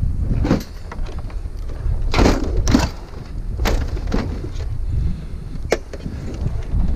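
Scrap items being shifted around in the back of a vehicle: several separate clunks and scrapes over a steady low rumble.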